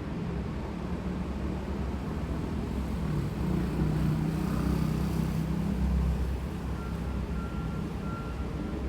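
A motor vehicle's engine running on the street, its low rumble swelling as it comes close about halfway through, then easing. Near the end comes a series of short, evenly pitched beeps, like a vehicle's warning beeper.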